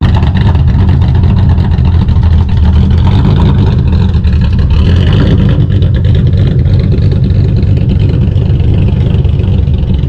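Custom classic Ford Mustang fastback's engine running loud and steady through its exhaust as the car drives away, a dense low rumble that starts abruptly.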